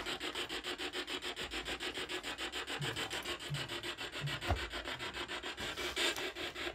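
Spirit box sweeping through radio stations, giving a fast, even chopping of static. A brief low thump comes about halfway through.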